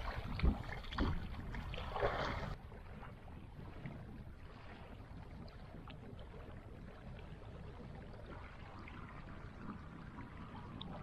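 Lake water lapping and splashing around a person standing in it, with small waves washing on a stony shore and a few short splashes. About two and a half seconds in, it cuts to a quieter, steady hiss of open-air water ambience.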